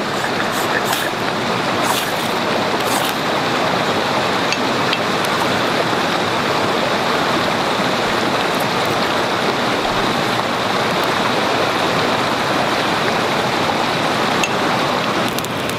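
Forest stream rushing, a steady even wash of water. In the first three seconds come a few short, high scrapes of a ferrocerium rod struck over wood shavings.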